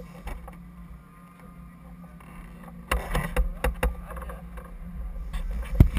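Hands handling the tank-mounted GoPro camera and its mount: a cluster of sharp knocks and clicks starting about halfway through, ending with one loud knock, over a steady low hum.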